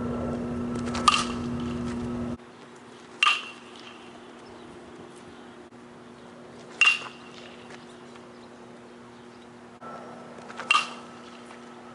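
Metal baseball bat hitting pitched balls: four hits a few seconds apart, each a sharp crack with a short ringing tone, over a steady low hum.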